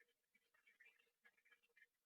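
Near silence: faint room tone with a few very faint scattered small sounds.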